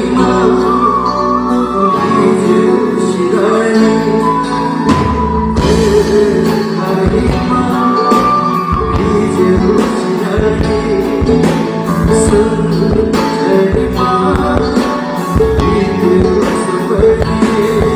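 Live rock band playing, with guitar and singing over sustained chords; the drum kit and bass come in about five seconds in and keep a steady beat.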